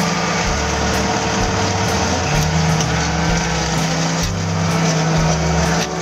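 Hydraulic excavator's diesel engine running steadily, heard from inside the operator's cab, with a constant low hum.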